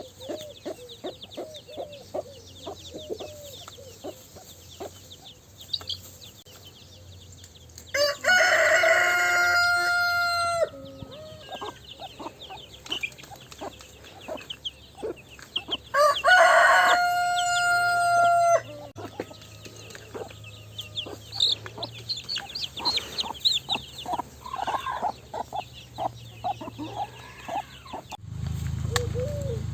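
A rooster crowing twice, each crow a long loud call of about two and a half seconds, with scattered clucking and small bird calls between. A low steady rumble comes in near the end.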